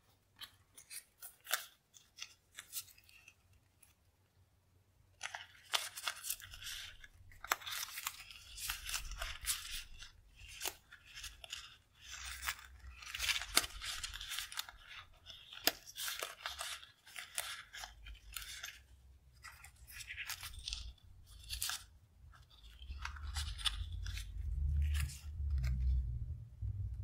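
Stack of die-cut paper stickers handled close to the microphone: a few light paper taps, then from about five seconds in a continuous crackly rustling and crinkling as the stickers are shuffled and squeezed together. Low bumps near the end as the hands press on the notebook.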